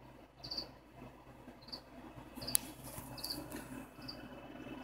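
Cricket chirping: short high chirps repeating about once a second. A single sharp click sounds about halfway through.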